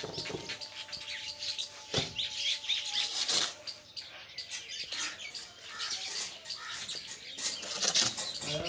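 Metal shovel scraping and chopping through a heap of cement mortar on a cement floor, in repeated uneven strokes, with one sharp knock about two seconds in.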